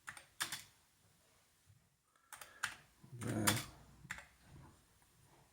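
Keys being typed on an Amiga 1200 computer keyboard: a handful of separate, irregular keystrokes with short pauses between them, entering a search.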